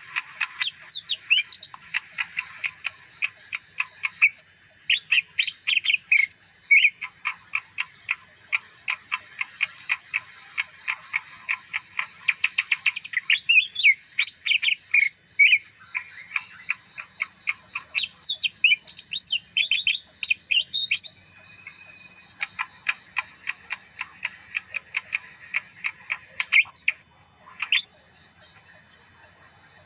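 Caged leafbird singing a long, fast, varied song of chirps, clicks and whistles, with a brief lull about two-thirds of the way through; it stops shortly before the end.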